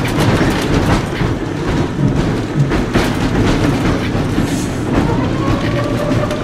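Interior of a 1920s Porto-built, Brill-design streetcar running along the track: a steady rumble with scattered clicks from the wheels on the rails. About five seconds in, a steady whine comes in and holds.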